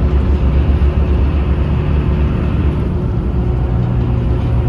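Ferry's diesel engine running with a steady low drone while the boat manoeuvres in to dock. About three and a half seconds in, a second, slightly higher hum joins the drone.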